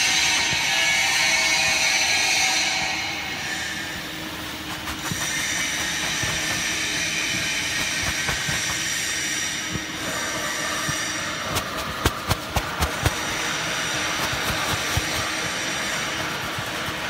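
Wood chip horizontal bagging baler running, a steady mechanical noise with hiss. A quick run of sharp knocks comes about twelve seconds in.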